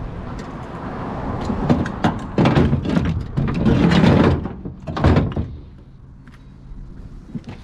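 Heavy scrap metal being shifted and loaded onto a vehicle: rough scraping and clattering that builds over several seconds, then a loud thunk about five seconds in, followed by quieter knocks.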